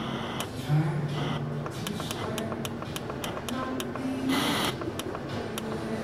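Pioneer X-EM16 micro system's FM radio being tuned by steps: radio static with short bursts of hiss and brief scraps of station sound, over a run of sharp clicks.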